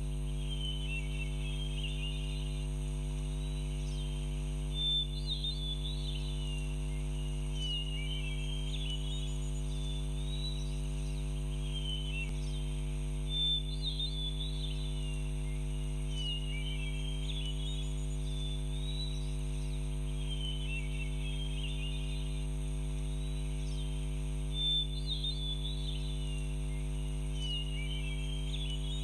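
Background nature ambience: clusters of high chirping calls that repeat in a loop roughly every ten seconds, over a steady low hum.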